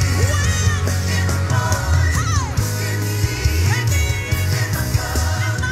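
Loud worship music: a singing voice with gliding, wavering notes over a steady, heavy bass line and instruments.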